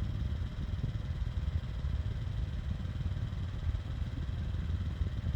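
High-velocity desk fan running steadily: a continuous rush of air with a low, fluttering rumble.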